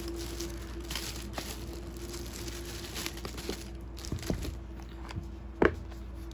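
Packaging and items being handled: crinkling and rustling with scattered small clicks, and one sharp knock about five and a half seconds in.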